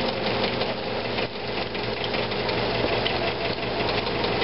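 Potato cakes frying in hot shallow oil in a pan: a steady sizzle of fine crackles, over a low steady hum.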